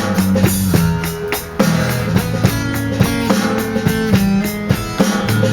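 Live blues band playing an instrumental passage: guitar with a drum kit keeping a steady beat.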